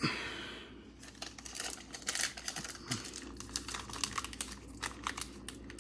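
A trading-card pack wrapper torn open, a short rasp at the start, followed by the crinkle of the wrapper and many small irregular clicks as the cards are handled.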